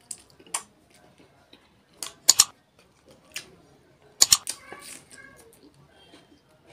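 Close-up mukbang eating sounds of a person eating duck curry with rice by hand: wet lip smacks and chewing with sharp, crunchy bites, a few per second in bunches, the loudest about two and four seconds in.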